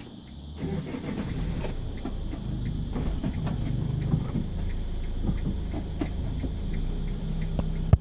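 Iveco Daily minibus's 3.0-litre four-cylinder turbodiesel running under load, heard from inside the cabin. It builds about half a second in and holds steady, then a sharp click near the end and the sound drops away suddenly.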